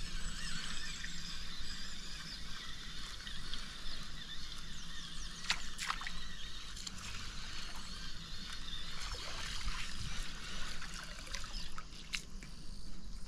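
River water trickling and sloshing, with a low steady rumble underneath and a few sharp clicks about five and a half seconds in and again near the end.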